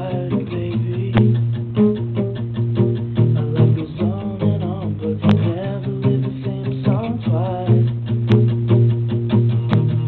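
Classical guitar played fast and busily: a steady stream of plucked notes over strong, deep bass notes, with a few sharp string snaps along the way.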